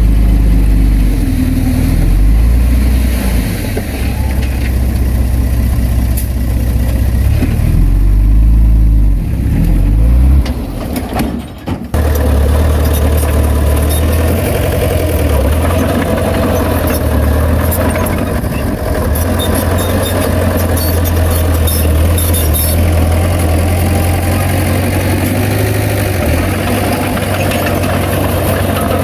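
Heavy diesel engine of earthmoving machinery running under varying load, its low drone shifting in pitch. The sound drops out briefly about twelve seconds in and then carries on.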